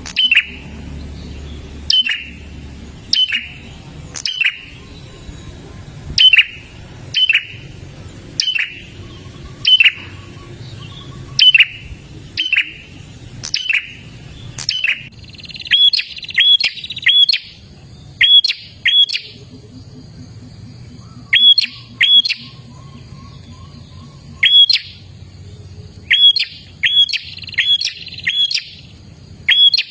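Prinia calling: loud, sharp chips that sweep down in pitch, about one a second at first, then coming in quicker pairs and triplets from about halfway through.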